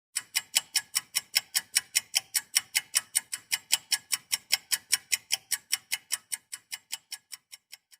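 Rapid, even ticking, about five ticks a second, fading away near the end.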